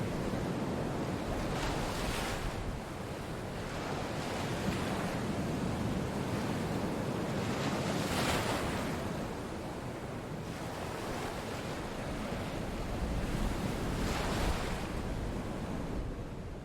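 Recorded water ambience of gentle waves washing in, a steady rushing that swells about every six seconds.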